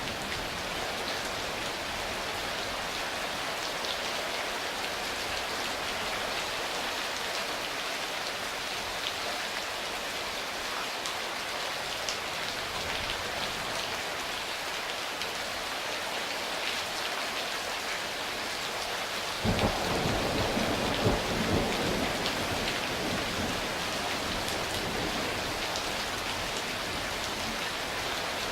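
Steady heavy rain falling on surfaces, with a thunderclap about two-thirds of the way through, its low rumble starting suddenly and rolling for a few seconds before fading back under the rain.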